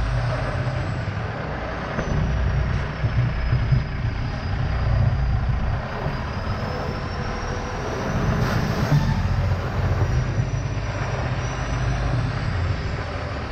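Semi-truck's diesel engine running at low revs while the tractor manoeuvres to couple to a container chassis. It grows louder for a couple of seconds about eight seconds in.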